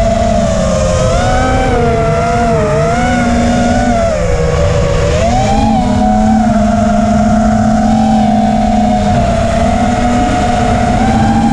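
FPV racing quadcopter's brushless motors and propellers whining in flight. The pitch wavers up and down with the throttle, dips about four seconds in and climbs again about a second later, over a rough rush of wind and prop noise.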